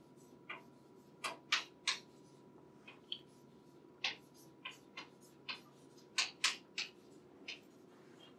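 Chalk on a blackboard while writing: about fourteen short, irregular taps and clicks over a faint steady room hum.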